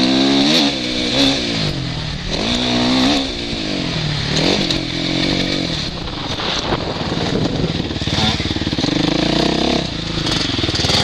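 Suzuki RM-Z450 four-stroke single-cylinder motocross engine heard from the rider's helmet, its revs rising and falling several times as the bike accelerates, shifts and slows for corners, with a steady rush of wind.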